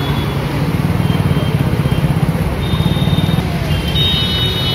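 Motor traffic on a flooded street: a steady, fluttering engine rumble from scooters and motorcycles riding through the water. Thin high-pitched tones sound briefly about halfway and again near the end.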